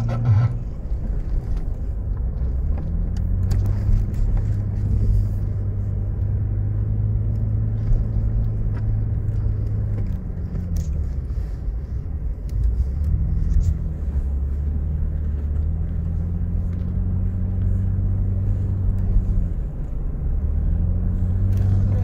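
A 4x4's engine running under load, heard from inside the cabin, over a deep rumble; its pitch dips and climbs several times as it is driven over sand dunes.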